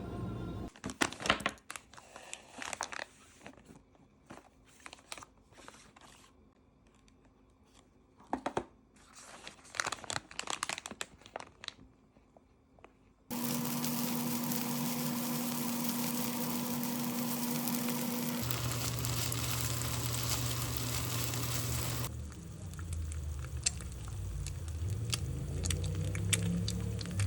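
Plastic packaging crinkling and rustling with small handling clicks, then a loud steady machine noise with a hum that drops in pitch partway through.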